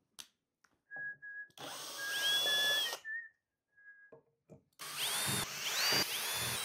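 Cordless 24-volt brushless drill backing out screws from a battery case lid. It runs in two short bursts, each a whine that rises as the motor spins up and then holds, the second with a few quick rises as the trigger is squeezed again. A faint steady high whine comes before and between the bursts.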